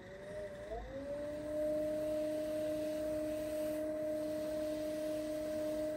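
Electric pottery wheel's motor whining as the wheel head spins up. The pitch rises over about the first second, then holds as a steady whine at speed.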